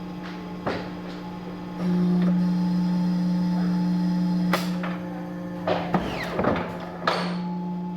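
Paper-cutting guillotine machine running: a steady motor hum that gets louder about two seconds in, with several sharp knocks and clanks in the second half.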